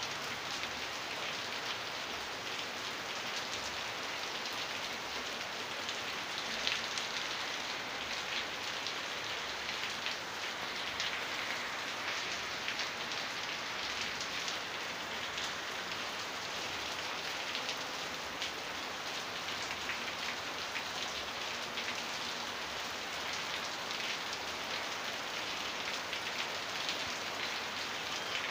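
Steady rain falling: an even hiss made of many small drop impacts, with no let-up.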